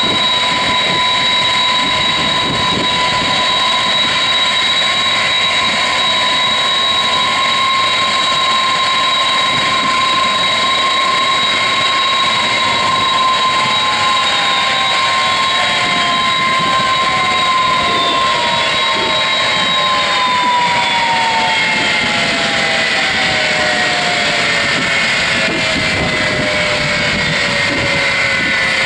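Boeing 747-200F's jet engines running with a steady high whine over a broad rush. From about halfway on, the whines start falling in pitch one after another as the engines spool down, the last still sliding down at the end.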